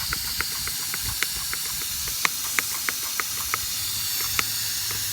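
Compressed air at about 20 psi hissing steadily out of a lawn mower engine's leaking head gasket, with light regular ticks about three times a second. The leak is the sign of a blown head gasket.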